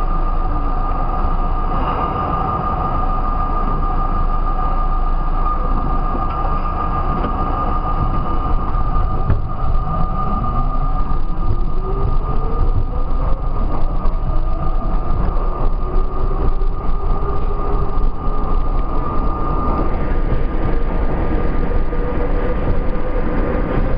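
R32 subway train pulling away from a station and picking up speed through a tunnel: a steady rumble of wheels on rail under a constant high hum. About ten seconds in, the traction-motor whine climbs in pitch as the train accelerates, and it rises again near the end.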